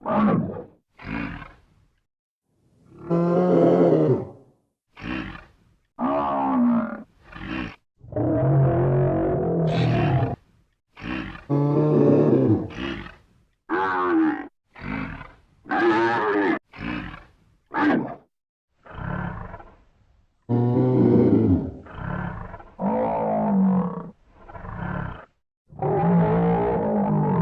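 Buffalo bellowing: a string of separate deep, pitched calls, each about a second or two long, cut one after another with short silent gaps between.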